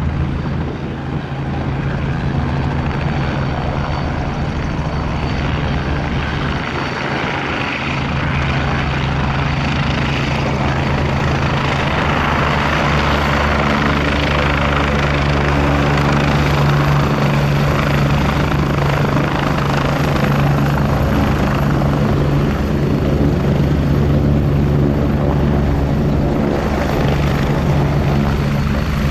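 Agusta A109E Power twin-turbine helicopter flying low and hovering: a steady rotor beat under a thin, high turbine whine, growing a little louder about ten seconds in.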